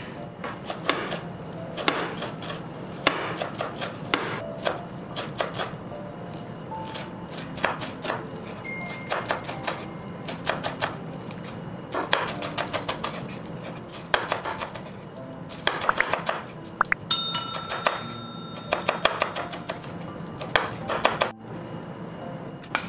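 Kitchen knife chopping parsley on a bamboo cutting board, in quick runs of rapid strikes with short pauses between them.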